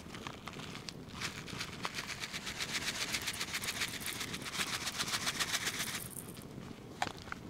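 Dry seasoning shaken out of a foil pouch: a fast, even rattling rustle from about a second in until about a second before the end. A few sharp crackles from the wood fire come before and after it.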